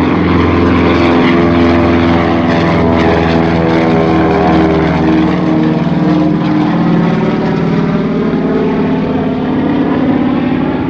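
Douglas C-47's twin Pratt & Whitney R-1830 radial engines at takeoff power as the plane rolls down the runway and lifts off. It is a loud, steady propeller drone whose pitch sags slightly in the second half as the plane passes by.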